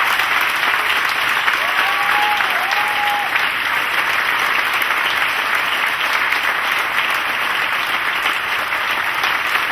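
Sustained applause: many people clapping steadily together in a theatre.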